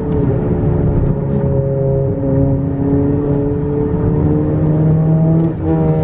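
Straight-piped turbocharged Honda Accord engine, muffler and resonator deleted, pulling hard under acceleration with its pitch climbing steadily. Near the end the sound dips briefly and drops in pitch as the driver shifts up a gear.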